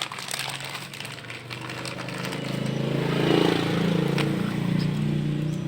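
A passing motor vehicle's engine, growing louder to a peak just past the middle, then fading away.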